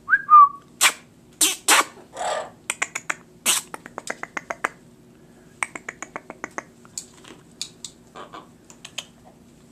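A macaw making rapid trains of sharp clicks, several a second, after a short pitched squeak at the start and a few short harsh calls in the first couple of seconds, over a faint steady hum.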